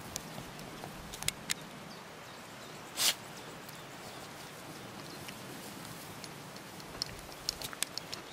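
Dogs moving and nosing through tall grass and heather: scattered rustles and light ticks over a steady hiss, with one short sharp noise about three seconds in and a quick run of ticks near the end.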